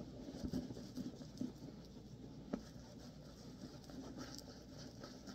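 Faint rubbing and handling of a leather boot as grease is worked into it with a cloth, with a few soft knocks in the first three seconds.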